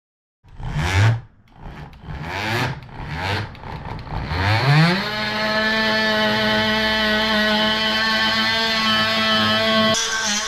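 Boat engine revved in four short rising bursts, then held at a steady high speed from about five seconds in, running with a constant tone.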